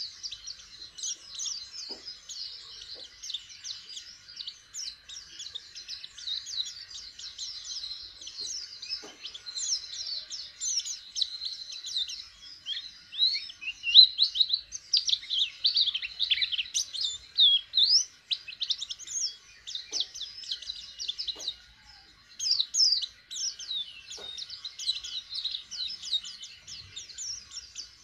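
A caged white-eye (pleci) sings a rapid, twittering string of high chirps and trills, loudest about halfway through, with a brief pause near two-thirds of the way. It is a young bird just beginning to sing ('learning to open its beak'). A few faint taps sound now and then.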